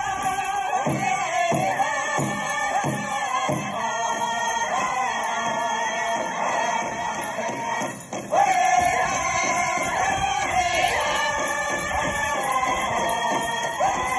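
Powwow drum and singers performing a chicken dance song: a group of voices singing over a steady drumbeat of about one and a half beats a second, the drumbeat fading out about three and a half seconds in. The song drops out for a moment about eight seconds in, then the voices come back in loud and high.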